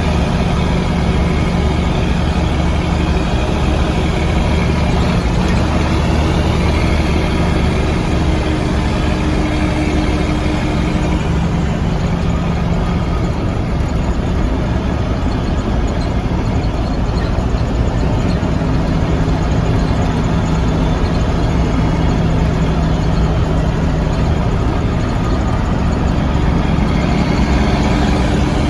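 Mack B-61 truck's diesel engine running on a test drive, with its freshly repaired injection pump. Steady loud engine note whose pitch shifts a little partway through as engine speed changes.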